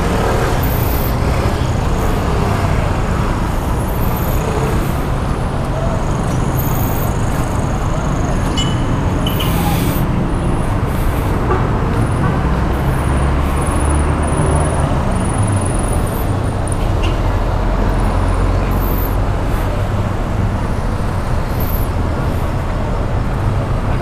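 Steady road-traffic noise with the low rumble of passing vehicles, and a few short high-pitched tones over it.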